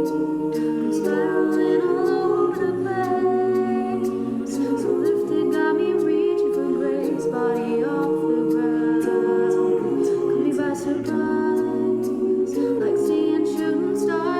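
Music: an a cappella vocal group singing wordless harmonies, several voices holding and changing chords together over a light, regular ticking beat.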